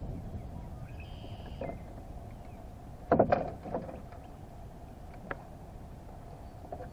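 Sounds from a Hobie Pro Angler 12 fishing kayak on the water: a steady low noise of water and wind around the hull, with a cluster of loud knocks on the hull about three seconds in and a single click about two seconds later.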